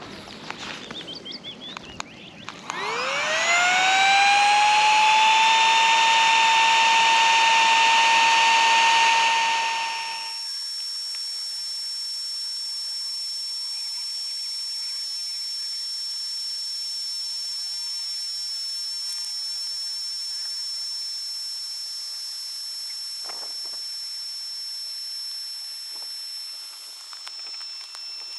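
Flextail Zero micro-motor air pump switching on and spinning up with a sharply rising whine, then running loud and steady while it inflates a sleeping pad. About ten seconds in the sound drops to a quieter, airy hiss with a thin, high, steady whine that carries on to the end.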